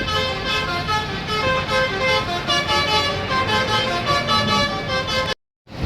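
Bus telolet horns, multi-tone air horns playing quick melodic runs of notes that step up and down, over a low rumble. The sound cuts off abruptly near the end.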